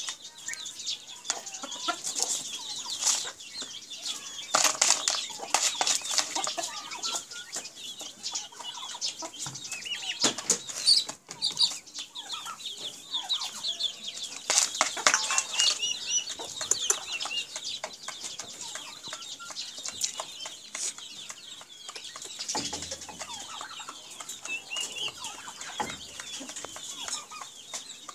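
Naked Neck chickens clucking, with high chirps and short taps scattered throughout.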